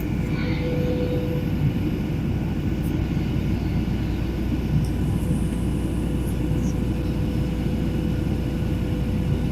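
Steady engine drone and airflow noise inside an airliner cabin in flight, with a faint steady hum above the rumble; the engines are at climb power.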